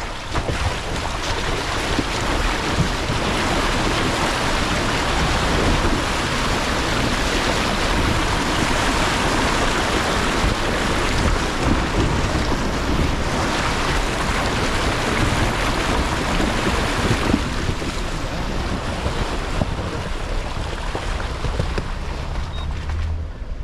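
Water rushing and splashing around a 2022 Nissan Frontier Pro-4X as it drives through a deep water crossing, a loud steady wash of noise that eases off about three-quarters of the way through.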